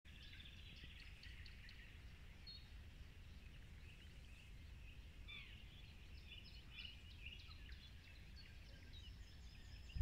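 Faint birdsong: several small birds chirping and trilling at once, over a low steady rumble.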